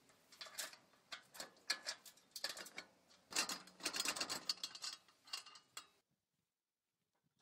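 Chain links and steel pins rattling and clinking against the galvanised steel square-tube frame of a collapsible Mad Dog cement mixer as its folding legs are handled: quick, irregular metal clicks, thickest about three to four seconds in. They stop abruptly about six seconds in.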